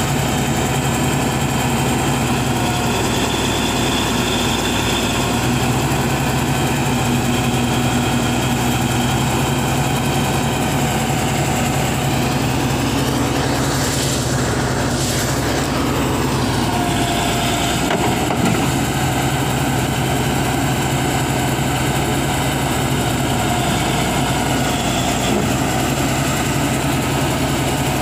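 Crawler bulldozer's diesel engine running steadily at low speed.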